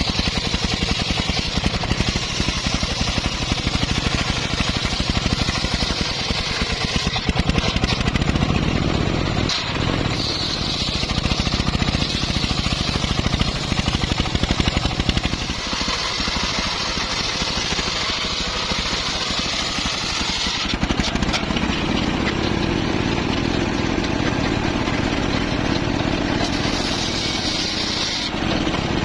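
Homemade bandsaw running with its engine and cutting teak wood: a steady fast-pulsing engine note under a hissing cutting sound that grows and fades every few seconds as the blade works through the timber.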